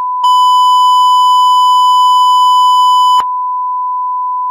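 Test-card tone of TV colour bars and tone: one loud, steady beep. From just after it starts until about three seconds in, it is louder and buzzier with added overtones, then it drops back to a plain, softer pure tone.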